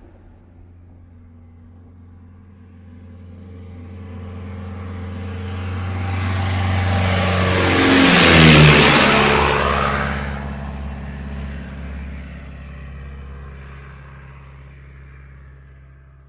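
A motor vehicle driving past. Its engine note grows louder to a peak about eight seconds in, drops in pitch as it passes, then fades away.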